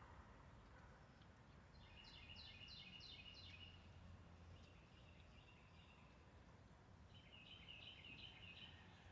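A small bird singing faintly against quiet outdoor background: a short phrase of quick repeated high notes, then a fainter snatch, and the phrase again near the end.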